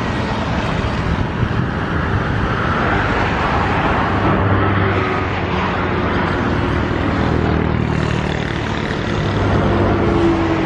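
A motor running steadily with a continuous hum and a noisy wash.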